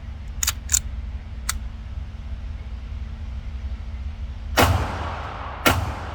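Two shots from a 2011-pattern pistol about a second apart near the end, each followed by a short ringing echo. They come after a few light clicks in the first two seconds.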